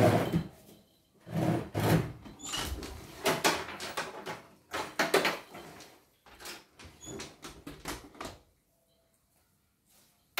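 Hands handling a portable embroidery machine: irregular knocks, plastic clicks and rubbing as its body and embroidery unit are moved and fitted, falling quiet for a moment near the end.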